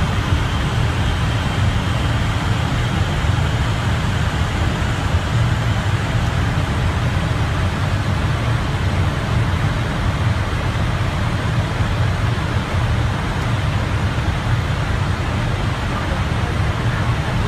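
Airliner flight-deck noise at cruise altitude: a steady low rumble of airflow with an even hiss above it.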